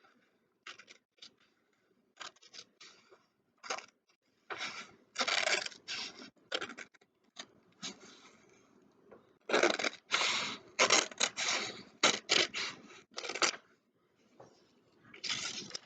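Scissors cutting through a paper worksheet: runs of quick snips in several bursts, with short pauses between them.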